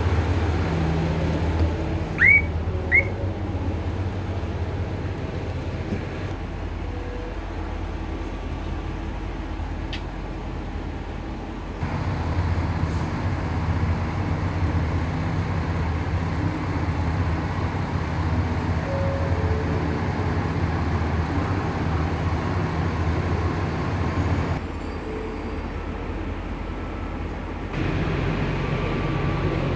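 Diesel railcar's engine idling with a steady low hum while the train stands at the platform. Two short, rising high chirps come about two seconds in, and the hum drops for a few seconds near the end before coming back.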